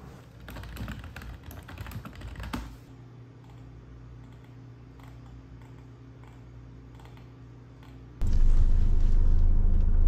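Typing on a computer keyboard, a quick run of key clicks for about two seconds, followed by a low steady hum. About eight seconds in, a much louder, steady low rumble of a running car begins abruptly.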